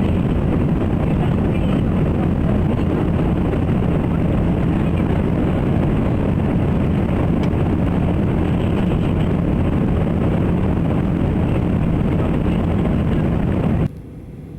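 Steady loud noise of a jet airliner's engines and rushing air heard inside the cabin. Near the end it drops suddenly to a much quieter level.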